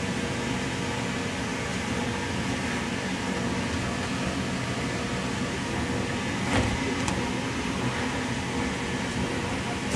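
Steady drone of an electric blower fan keeping an inflatable bouncy castle blown up, with one thump about two-thirds of the way through.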